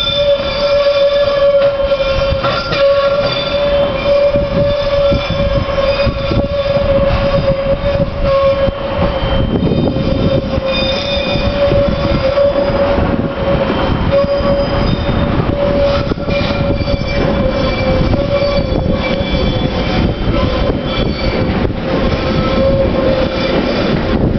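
81-717 series metro train rolling slowly through the depot tracks, with a steady whine throughout, higher squeals from the wheels that come and go, and a low rumble with scattered clatter over the points.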